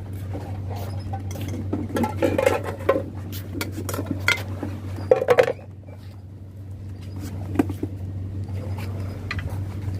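Irregular clinks and knocks of hard objects being handled, over a steady low hum.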